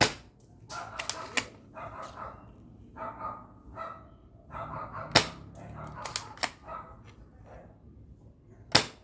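Spring-powered D|Cobra M306 TEC-9-style airsoft pistol firing single shots: three sharp snaps, one at the start, one about five seconds in and one near the end, with quieter clicks and clacks in between.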